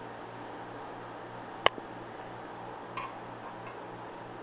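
Handling noise from the old catalytic converter: one sharp click a bit under two seconds in and a faint tap near three seconds, over a steady low electrical hum.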